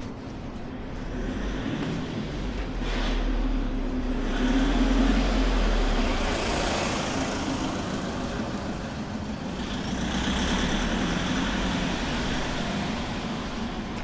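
Motor vehicles passing on a city street: a low engine rumble with tyre noise that swells to a peak about five seconds in, then another vehicle passing around ten seconds in.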